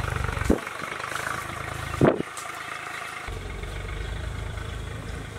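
A low, steady motor-like hum that drops away about half a second in and returns about three seconds later, with two brief short sounds in the gap.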